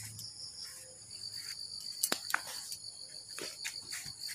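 Evening insect chorus, most likely crickets: a steady, high, pulsing trill. Over it come a few sharp clicks and rustles as leafy plants are handled close by.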